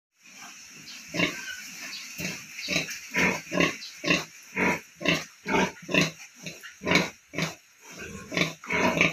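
A nursing sow grunting in a steady rhythm, about two short grunts a second, while her piglets suckle. These are typical sow nursing grunts.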